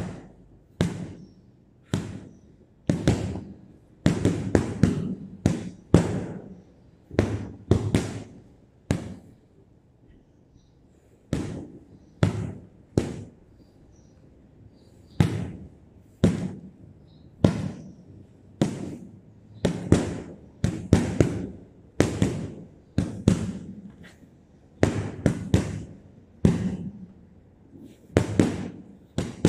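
Boxing gloves punching a hanging heavy bag: sharp thuds, singly and in quick combinations of two to four, with gaps of a second or two now and then.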